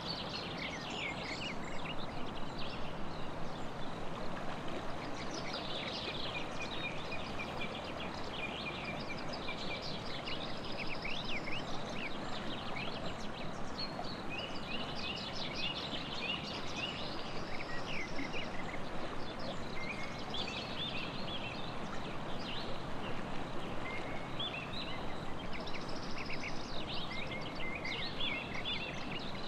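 Several birds singing and chirping in quick runs of short notes over the steady rush of a river.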